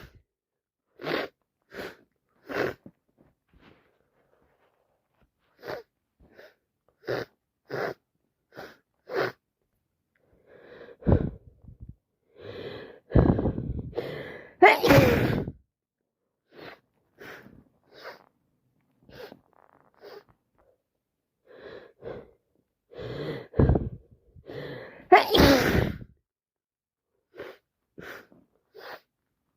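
A woman sneezing over and over in an allergy fit set off by fresh flowers: short sharp sneezes and breaths come in quick succession, with two big, loud sneezes about halfway through and again a few seconds before the end.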